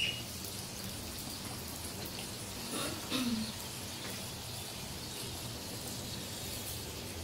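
Oil sizzling and crackling softly under pastry parcels shallow-frying on low heat in a nonstick pan, with one brief sliding sound about three seconds in.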